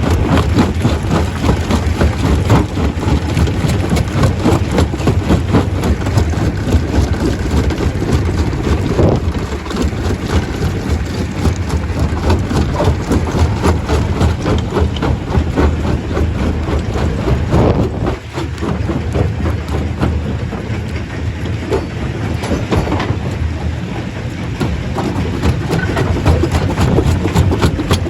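Stone crusher running, a loud heavy rumble with constant rapid clattering as rock is broken up. The level dips briefly about two-thirds of the way through.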